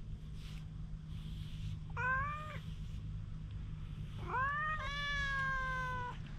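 A cat meowing twice: a short meow about two seconds in, then a longer, drawn-out meow from about four seconds in that rises and then holds.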